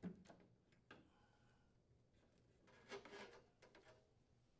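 Near silence with a few faint clicks and rubs, one near the start, one about a second in and a short cluster around three seconds in: hands pressing the refrigerator door's plastic water supply line into its retainers.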